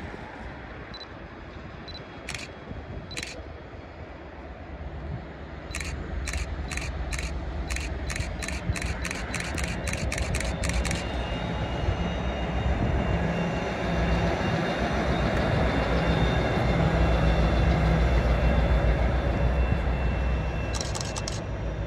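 Camera shutter clicks: two single clicks, then a fast run of them, then a few more near the end. Under them a train approaches and passes with a low rumble that grows steadily louder, along with a faint high steady whine.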